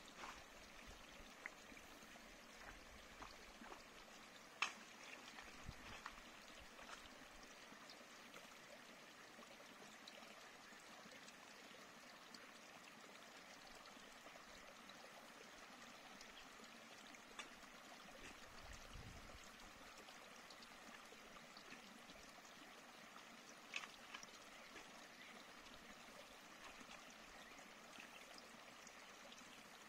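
Faint, steady rush of a running stream, with a few sharp clicks.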